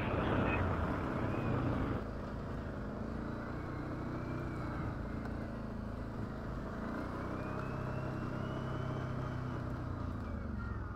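ATV engine running steadily at low trail-crawling speed, a little louder for the first two seconds, with a faint high whine that slowly rises and falls in pitch.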